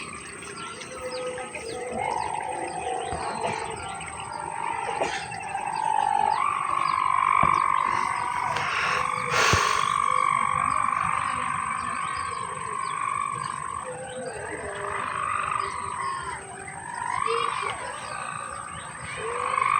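Kite hummer of a layang-layang danguang droning in the wind: a sustained hum that steps up in pitch about six seconds in, holds steady, then wavers and shifts up and down near the end as the wind changes. A single sharp click about halfway through.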